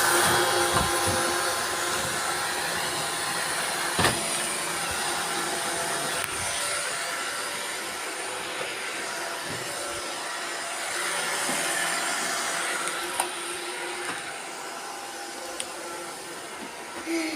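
Several robot vacuum cleaners running at once: a steady hiss of suction and brushes with a mix of motor whines, broken by a few knocks, the sharpest about four seconds in.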